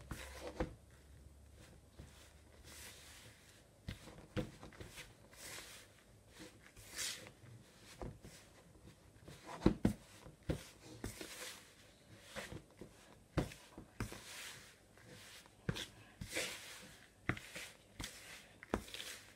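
Pastry blender cutting butter and shortening into flour in a plastic bowl: soft, irregular scraping and rustling through the crumbly mix, with occasional light knocks against the bowl, the strongest about halfway through.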